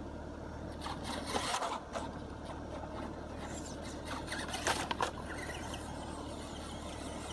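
ECX Amp electric RC car driving on dirt, its tyres scraping in two short bursts, about a second in and again near five seconds. An air conditioning unit hums steadily underneath.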